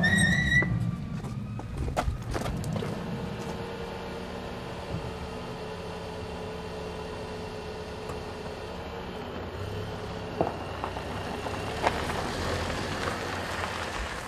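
Alfa Romeo Spider's engine idling steadily, with a brief rising squeak right at the start and a few sharp clicks.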